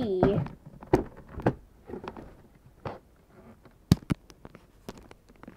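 Scattered light knocks and taps of plastic toy figures and playset pieces being handled, the sharpest pair about four seconds in.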